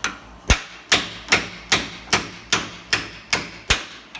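Hammer striking a drive shaft yoke held in a vise, about ten evenly spaced blows at roughly two and a half a second, each with a short ring, to drive a worn U-joint's bearing cap out of the yoke.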